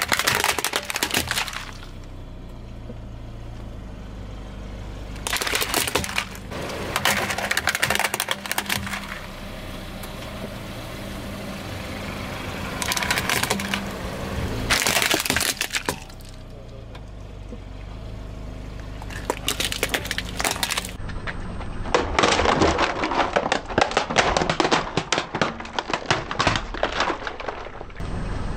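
Hard plastic toys, a transforming robot truck and building bricks, cracking and snapping as they break under a slowly rolling car tyre. The crackling comes in several bouts of dense snaps, with a low steady hum between them, and the longest and loudest bout comes in the last six seconds.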